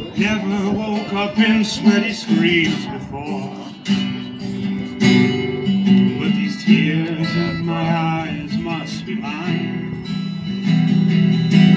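Acoustic guitar strummed and picked in a song, with a man singing over it.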